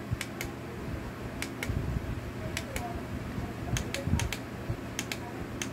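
Button on a LUMiX alarm clock and Bluetooth speaker being pressed and released over and over: sharp paired clicks about once a second, six or seven presses in all.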